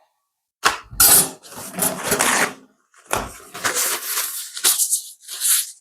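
Bowls and utensils being handled in a kitchen: a run of clinks, knocks and scraping, in two bursts with a short pause about halfway.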